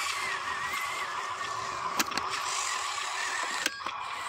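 Whine of a Huina RC dump truck's electric drive motor and gearbox as the loaded truck crawls along, its pitch wavering slightly with speed. A sharp click about halfway through and another near the end.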